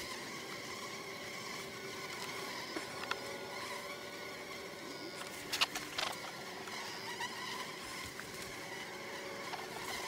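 Honey bees buzzing over an open hive: a steady, many-pitched hum from a mass of bees, stirred up by alarm pheromone. A few short clicks and knocks come through about three seconds in and again about halfway.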